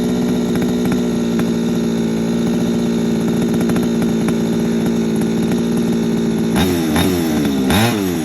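Two-stroke gas engine of a Losi 5ive-T 2.0 1/5-scale RC truck running steadily during its break-in. About six and a half seconds in, it is revved up and down in several quick throttle blips.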